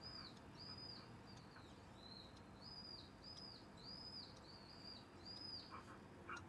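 Faint, high chirps repeating evenly, each about a third of a second long and about one and a half a second, over a quiet background.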